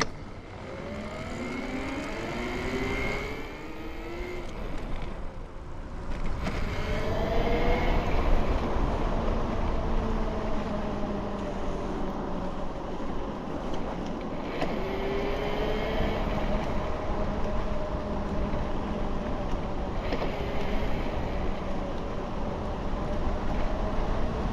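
Bafang BBSHD mid-drive e-bike motor, run at 72 volts, whining up in pitch several times as the bike accelerates under power. Steady wind rush on the microphone underneath.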